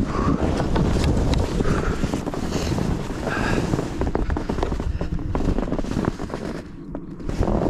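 Heavy wind buffeting the microphone, a dense rumbling rush with many small clicks and knocks through it. It eases briefly near the end, then rises again.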